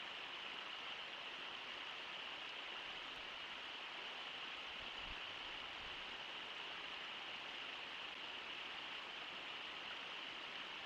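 Brooks Falls rushing: a steady, even roar of falling river water.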